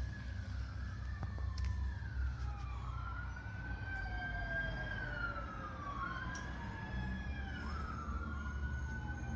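Emergency-vehicle sirens wailing, several overlapping tones slowly rising and falling, over a steady low rumble.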